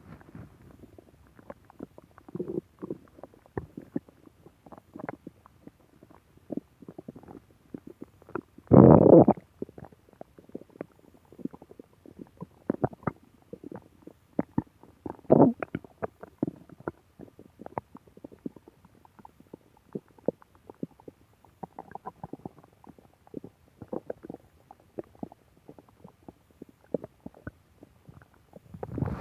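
Human stomach growling: a running series of small gurgles and pops, with a louder, longer rumble about nine seconds in and another strong gurgle around fifteen seconds.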